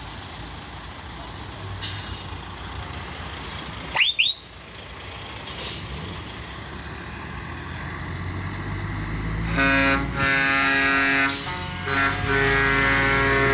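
Trucks in a convoy rumble closer, with two quick rising whistles about four seconds in. From about ten seconds, loud multi-tone truck air horns blow in long blasts with short breaks, changing chord partway through.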